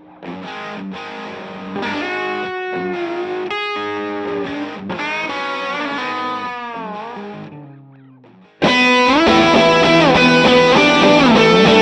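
Electric guitar played through an SSD 92 Drive overdrive pedal: single-note lead phrases with string bends that fade out. About three-quarters of the way through, a much louder, brighter and denser driven passage starts suddenly.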